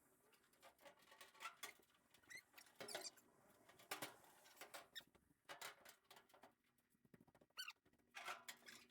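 Faint, scattered taps and short squeaks from sheet-metal hood panels being lifted and slid off the truck's front end.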